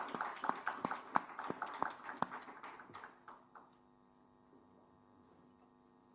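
Many camera shutters clicking rapidly and irregularly, dying away about three and a half seconds in, leaving a faint steady room hum.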